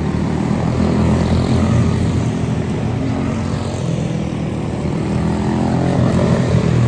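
Quarter midget race cars with small single-cylinder Briggs & Stratton Animal engines running on track, a steady engine drone that wavers slightly in pitch.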